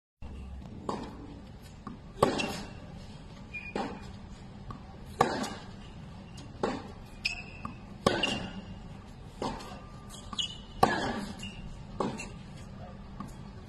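Tennis rally of groundstrokes: a racket strikes the ball about every second and a half, the hits alternating between the near player and the far one, some sharp and loud, others fainter, with the ball bouncing on the hard court between strokes.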